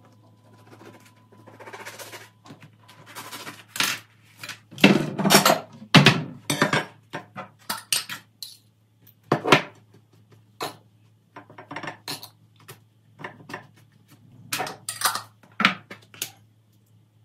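Dishes and cutlery being handled, an irregular run of clinks and clatters that is heaviest about five to six seconds in, over a faint steady low hum.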